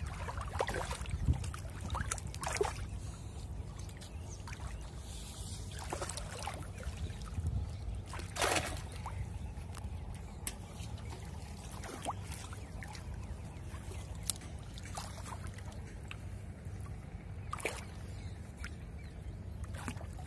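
Shallow water splashing and sloshing in short irregular bursts as a person wades through a flooded grassy field and grabs at a fish by hand, the biggest splash a little before halfway. A steady low rumble runs underneath.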